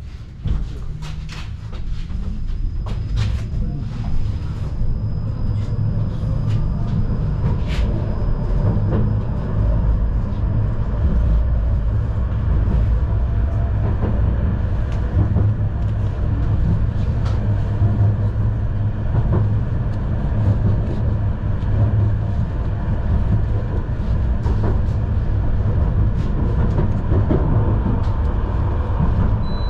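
Tram heard from inside the car as it gets under way and runs along the track: a steady low rumble of wheels on rails, with scattered sharp clicks and a faint high whine in the first several seconds while the noise builds up.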